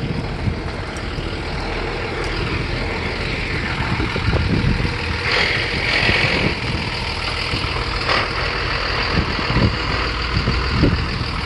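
Steady outdoor rumble of vehicles and machinery working in a scrapyard, with a brighter hiss swelling briefly about six seconds in.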